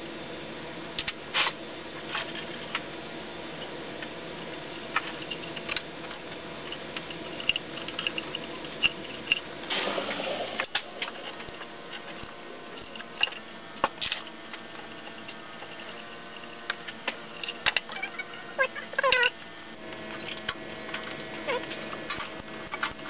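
Hand tools clinking and knocking on the metal of an engine as the camshaft sprocket (cam gear) bolts are worked loose, in scattered sharp clicks. A few short squeaks come in two clusters, a little before halfway and again near the end.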